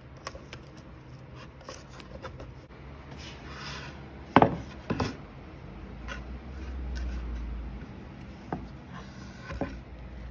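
A wooden board being handled on a workbench: rubbing and light taps, with two sharp knocks of wood on wood about four and a half and five seconds in.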